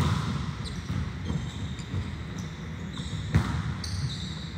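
Volleyballs being hit and bouncing on a gym floor: a sharp smack right at the start and another about three and a half seconds in. Between them, athletic shoes squeak on the court.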